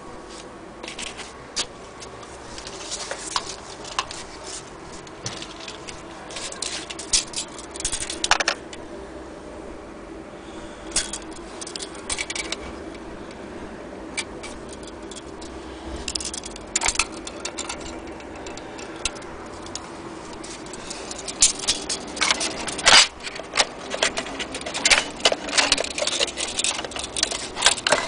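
Small hard parts being handled and set down: irregular clicks, clinks and light scrapes, coming thick and fast in the last few seconds.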